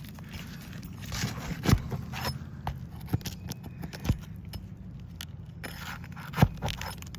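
A roofing tool working under asphalt shingles: scraping, with scattered sharp snaps and clicks, two louder ones about two seconds in and near the end.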